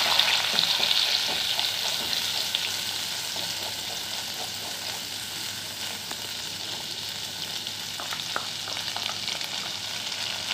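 Poppy-seed and dried-coconut paste sizzling in hot oil in a metal kadhai as a spatula stirs it, with faint scraping ticks; the paste has just gone into the oil to be fried. The sizzle is loudest at the start and eases down over the first few seconds.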